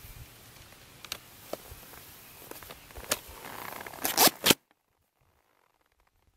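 Ski boot scraping and clicking into a Fritschi Vipec tech binding, with a quick cluster of sharp snaps about four seconds in as the toe pins close on the boot; the sound then cuts off suddenly.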